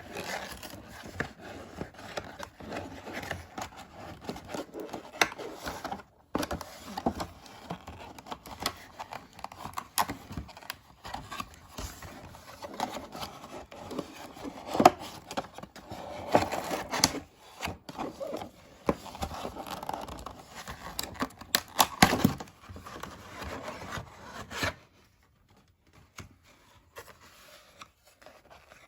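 Doll packaging being opened by hand: cardboard and plastic rustling, crinkling, tearing and scraping, with many sharp clicks and taps. The handling goes much quieter about 25 seconds in, leaving only a few faint ticks.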